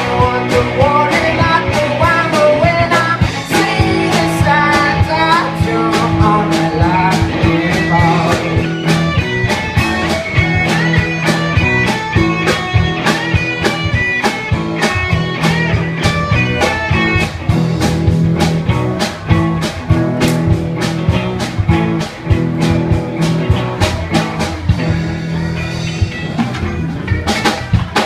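Live rock band playing an instrumental passage: a fast, steady drum beat, bass and electric guitar with a melodic lead line, breaking off near the end as the song finishes.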